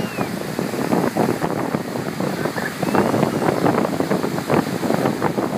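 Small sea waves breaking and washing up a shallow sandy beach, a continuous rush of surf with uneven surges, mixed with wind buffeting the microphone.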